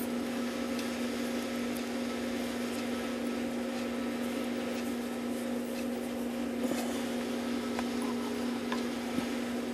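A steady machine hum holding one low pitch over a faint hiss, with a few faint clicks late on.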